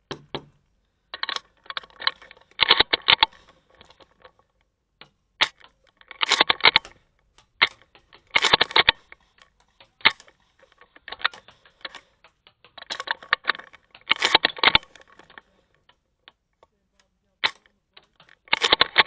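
Airsoft guns firing in repeated short bursts of rapid clicking shots, with a few single shots in between.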